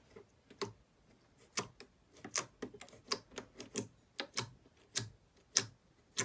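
Light, uneven clicks, about three a second, like typing on keys.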